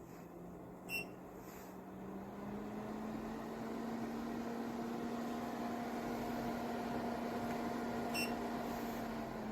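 Air purifier-humidifier fan running with a steady hum that rises in pitch and grows louder over the first few seconds as it speeds up. A short electronic beep from the unit sounds about a second in and again near the end.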